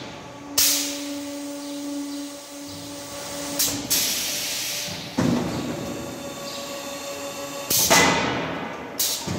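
Automatic silage bagging machine running its packing cycle: about five sudden hisses of air, as its pneumatic cylinders fire and vent, each fading over about a second, over a steady hum from the machine's motor.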